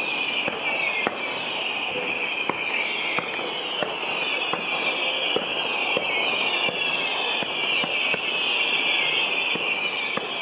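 Scattered sharp pops and crackles of fireworks launching and bursting in the distance, about one every half second to second, over a steady high-pitched chorus of insects chirping.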